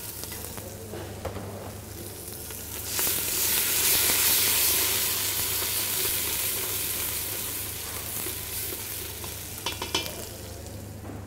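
Diced onion frying in hot oil in a stainless steel pot and being stirred with a spoon. The sizzling swells sharply about three seconds in and then slowly dies down. Near the end the spoon gives a few quick taps against the pot.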